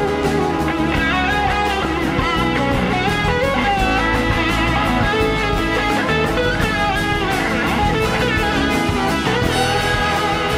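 Electric slide guitar solo over a live band with drums; the lead line glides and wavers between notes.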